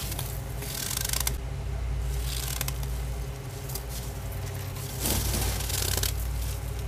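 Gloved hand digging into and scooping soft, powdery freezer frost: crunchy, rustling scrapes in a few bursts, the longest and loudest near the end. A steady low hum runs underneath.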